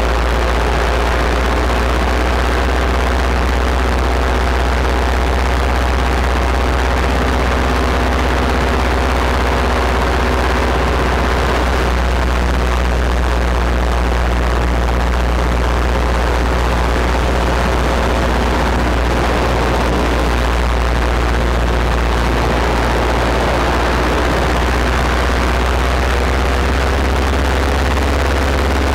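Paramotor engine and propeller running steadily in flight, a constant loud drone.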